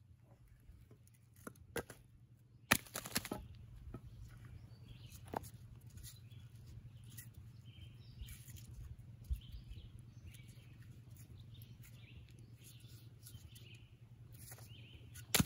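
A few sharp wooden knocks, the loudest about three seconds in, with weaker ones later, over a steady low hum. Birds chirp softly through the middle.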